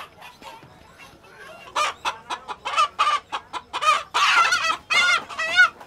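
Chickens squawking and clucking: after a quiet start, a rapid run of short, loud calls begins about two seconds in and is densest around four seconds in.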